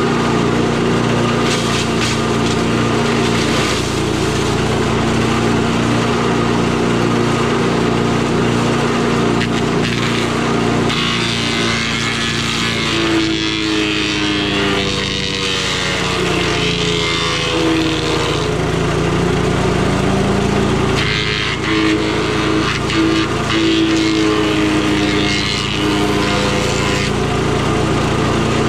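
8 hp Briggs and Stratton engine of a Tomahawk chipper shredder running at speed while branches are fed in. Twice, about a third of the way in and again past two-thirds, the shredder crackles and grinds through the wood and the engine's pitch sags as it bogs under the load.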